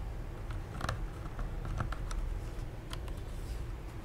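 A few scattered light plastic clicks and taps from a mechanical keyboard and its keycaps being handled, a handful of separate clicks over a low steady hum rather than a run of typing.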